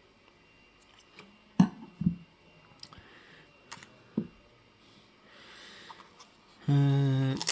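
A few sharp, isolated clicks and taps of small metal and plastic everyday-carry items being handled, then near the end a short, steady pitched sound.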